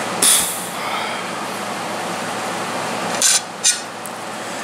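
Knife and fork working on a ceramic plate while cutting a piece of meat: a short clink or scrape near the start and two more in quick succession about three seconds in, over a steady hiss.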